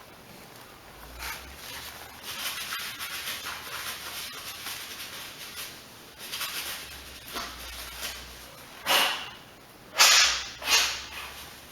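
Dirt being cleaned out of a lawnmower's air-filter housing: a run of short scrubbing noises, with several louder, sharper bursts near the end.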